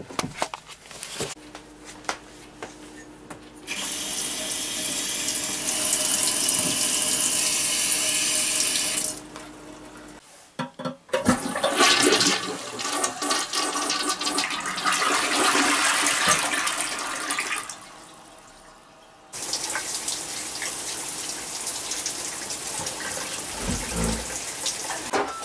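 Water rushing from newly plumbed fixtures in three stretches of steady hiss, each starting and stopping abruptly: the cabin's first running water.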